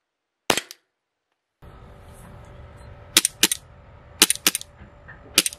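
KJW KP-17 Glock 17 green-gas blowback airsoft pistol firing: one sharp crack about half a second in, then, over a steady outdoor background hiss that starts about a second and a half in, sharp cracks in quick pairs, three pairs in a row.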